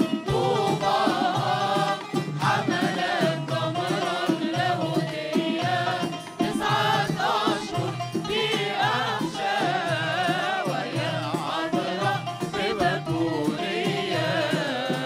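A Coptic church choir of men and women singing a hymn together to frame-drum accompaniment, with a steady run of drum strokes under the voices.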